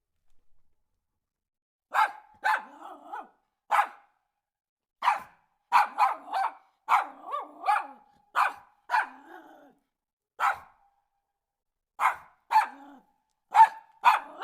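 Dog barking: about twenty sharp barks in irregular runs, beginning about two seconds in.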